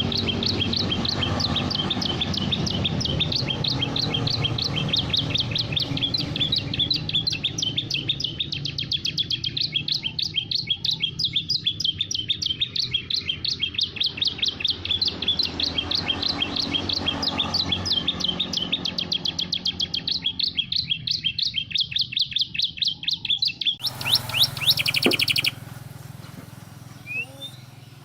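Canary singing a long run of rapid, evenly repeated high chirps, breaking into a brief very fast trill near the end and then falling quiet.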